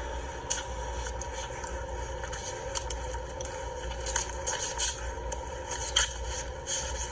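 A small animal sneezing and snorting in short, sharp puffs, about ten times at uneven intervals, over a steady hum.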